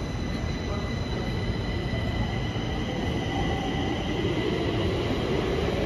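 Stockholm metro train approaching unseen, its wheels squealing in several steady high tones over a low running rumble that grows louder near the end.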